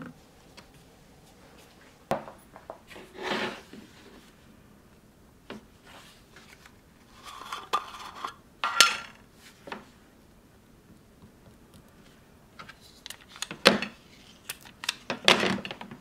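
Workbench handling sounds: scattered clicks and knocks, then a small round metal tin being twisted open, its lid scraping and coming free with a ringing metallic clink about nine seconds in. More knocks and a short rustle follow near the end.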